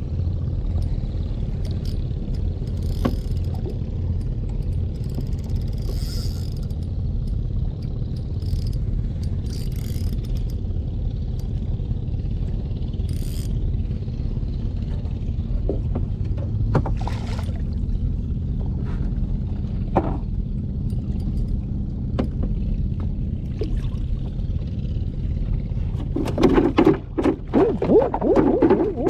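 An engine running steadily with a low rumble, with a few light clicks over it; near the end a louder, choppy sound comes in.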